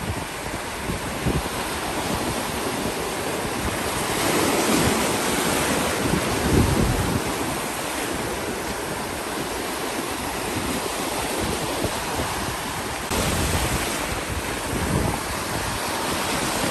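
Ocean surf breaking and washing up a beach: a steady rushing hiss that swells louder twice as waves come in, with wind buffeting the microphone.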